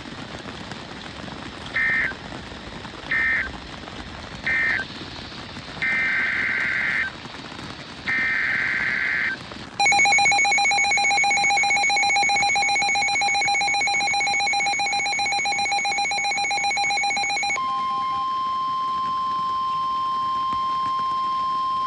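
NOAA Weather Radio SAME data bursts: three short screeching chirps (the end-of-message code of one warning), then longer screeching header bursts announcing the next alert. A loud, rapidly pulsing alert tone follows for about eight seconds, then gives way to the steady weather-radio warning alarm tone.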